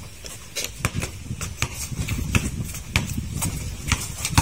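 A basketball being dribbled on a concrete court: sharp bounces about twice a second, the hardest one near the end.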